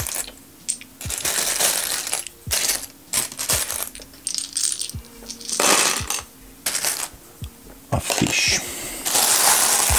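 Small plastic LEGO tiles clicking and clattering as hands rummage through a pile of them in a plastic storage box and drop pieces in. The clicks are scattered, with a few longer rattling stretches when the pile is stirred.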